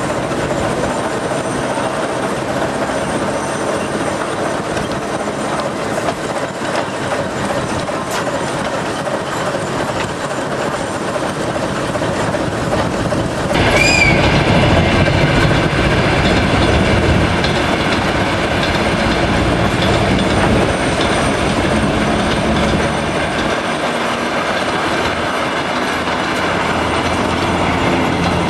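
TEM2 diesel shunting locomotive rolling through a station yard: steady running noise of the engine and wheels on the rails, with wheels clicking over the track. About halfway through it gets louder and a high wheel squeal sets in.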